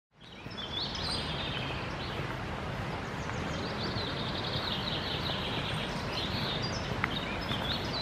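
Songbirds singing and chirping in woodland over a steady rushing background noise, fading in from silence at the start.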